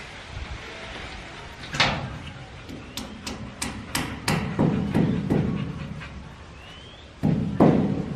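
A series of sharp knocks and taps at irregular spacing, several quick ones in a row, mixed with heavier thuds and handling noise, like hammering and handling hard objects during plumbing work.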